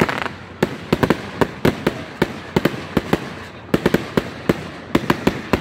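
Aerial fireworks going off: a rapid, irregular run of sharp cracks and bangs, several a second, with a short lull about halfway through.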